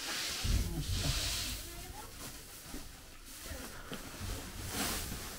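Chopped straw fodder pouring from a sack into a wooden feed trough, with a dry rustling hiss in two bursts during the first second and a half and again near the end.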